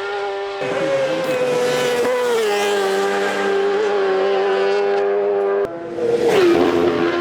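Racing motorcycle engines held at high revs, a steady high-pitched note that drops in pitch about two seconds in and then holds. A sudden cut near the end leads into another bike's note falling sharply and then holding steady.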